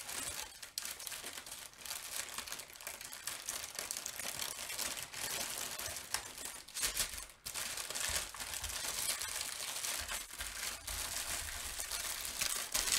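Small plastic bags of diamond-painting drills crinkling and rustling continuously as they are handled and bundled together.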